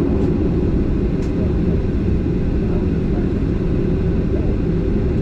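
Steady low rumble inside the cabin of a Boeing 737-800, its CFM56 jet engines running evenly with no spool-up, on the ground just before takeoff. Two faint clicks come early on, about a second apart.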